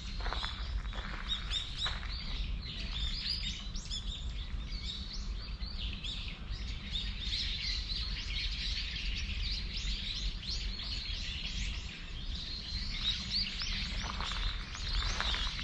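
Many small birds chirping and twittering without a break, over a low steady rumble. Footsteps on gravel come in near the start and again near the end.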